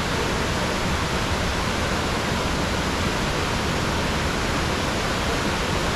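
Waterfall rushing steadily as white water cascades down a broad, sloping rock face into a pool. It makes an even, unbroken hiss.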